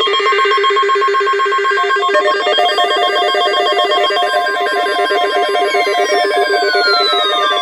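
The steady NOAA Weather Radio alert tone near 1 kHz, layered with the electronic alarm beeping of weather radio receivers: several fast-pulsing, warbling tones at once. About six seconds in, falling sweeping tones join.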